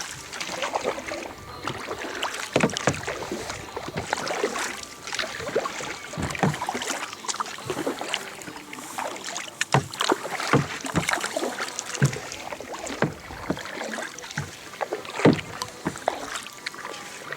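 Kayak paddling: paddle blades dipping and splashing in the water with drips and occasional sharp knocks, irregular strokes over a steady hiss of water and wind.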